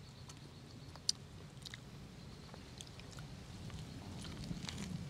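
Close-up eating sounds of a person chewing and biting steamed chicken: scattered small wet clicks and smacks, with one sharp click about a second in and a cluster of clicks near the end, over a steady low rumble.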